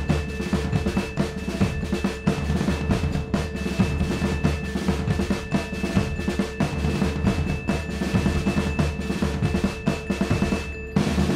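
Dramatic background music driven by rapid drums, close to a continuous drum roll, over a few held notes, with a short break near the end.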